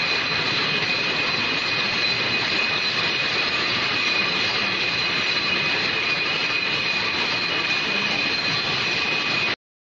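Factory machinery running: a loud, steady mechanical din with two steady high whines over it, cutting off suddenly near the end.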